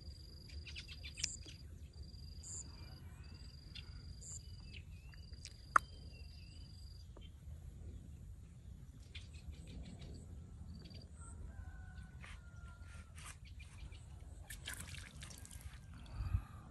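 Outdoor ambience: an insect's high, steady trill comes in repeated pulses about a second long and stops about seven seconds in. Scattered bird chirps and whistles run through it. A single sharp click just before six seconds is the loudest sound, and a dull thump comes near the end.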